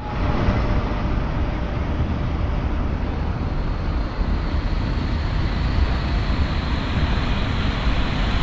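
Steady city street ambience: road traffic noise with a low rumble, without a break.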